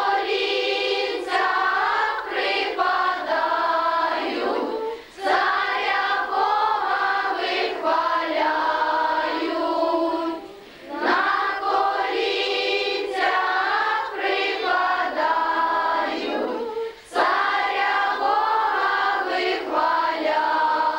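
Group of children and a woman singing a Ukrainian carol (koliadka) without instruments, in phrases about six seconds long with short breaks for breath between them.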